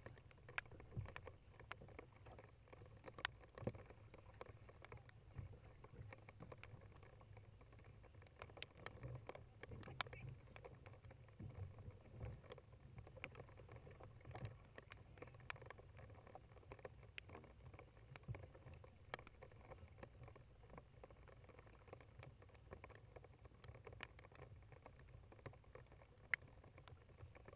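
Faint kayak paddling on calm water: scattered small drips and splashes at irregular moments over a low steady rumble, with a few louder ticks.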